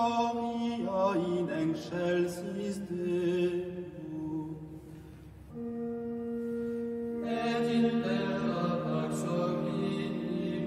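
Slow, meditative chant-like music: low voices hold long notes. After a quieter stretch, a steady drone note sets in about five and a half seconds in, and more voices join it about seven seconds in.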